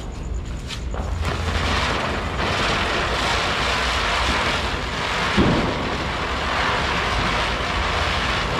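Ground-spinner firework (bhoo chakra) hissing steadily as it burns and spins, spraying sparks. It builds about a second in, after a couple of sharp cracks.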